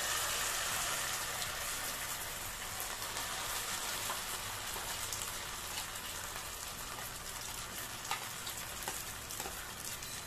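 Hot oil sizzling steadily around a lump of wet raw potato and poha paste just added to a nonstick kadai, a dense hiss that slowly softens.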